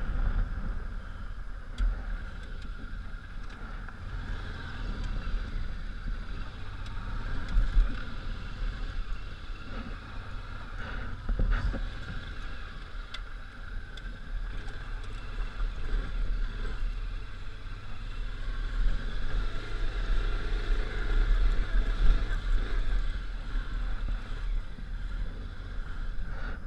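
Honda Africa Twin V-twin motorcycle engine running as the bike rides an off-road trail: a steady low rumble that rises and falls with the throttle, with a few sharp knocks.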